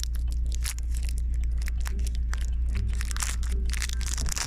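Close crackling and rustling right at the microphone, a quick irregular run of small clicks, over the steady low rumble of a car cabin on the move.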